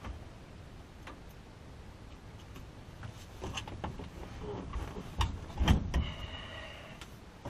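Scattered clicks, knocks and rustling as someone reaches into the cockpit of a parked Piper J3 Cub with its engine off. The heaviest thumps come about five to six seconds in.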